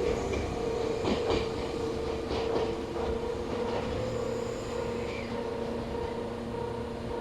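Electric train running through the station with a steady motor whine and clickety-clack from its wheels crossing rail joints, the clicks bunched a little after a second in and again around two to three seconds. The sound slowly grows fainter.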